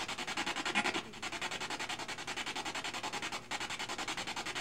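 Spirit box sweeping through radio stations: rapid chopping static at about ten pulses a second, with short breaks about a second in and again about three and a half seconds in.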